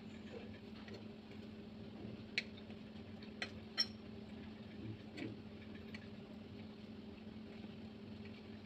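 A few light clicks of a plastic knife against a plate as a mooncake is cut, the sharpest three between about two and four seconds in, over a steady low hum.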